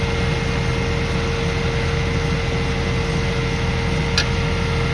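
An engine running steadily with a constant hum and low rumble, with a short sharp click about four seconds in.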